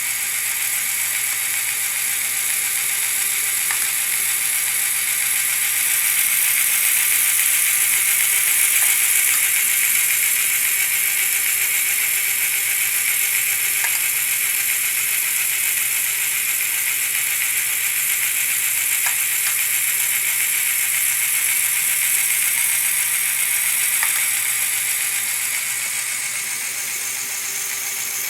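Motor-driven LEGO Technic mechanism running steadily: plastic gears whirring with a ratcheting clatter and a few faint ticks.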